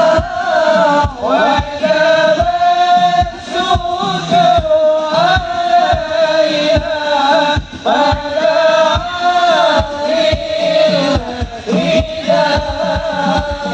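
Amplified sholawat: a lead voice chanting a wavering, ornamented devotional melody, accompanied by a steady beat of rebana frame drums.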